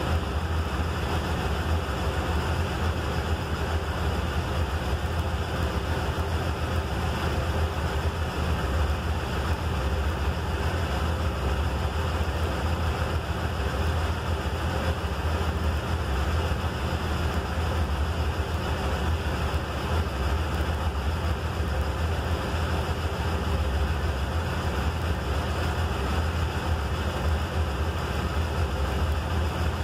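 Triumph Bonneville T100's air-cooled parallel-twin engine idling steadily after an emergency start on a weak battery, a low, even rumble with no revving.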